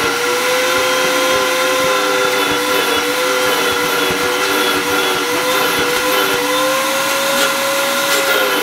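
Wet/dry shop vacuum running steadily with a motor whine, its hose nozzle run over clothing to suck off fiberglass strands. The whine's pitch wavers slightly as the nozzle moves.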